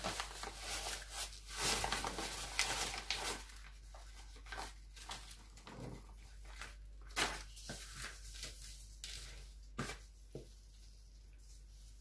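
Sand pouring from a plastic bag into a plastic basin of potting soil, the bag crinkling as it is tipped, a dense rustling hiss for the first three and a half seconds. Then scattered short rustles as gloved hands mix the sand into the soil, thinning out near the end.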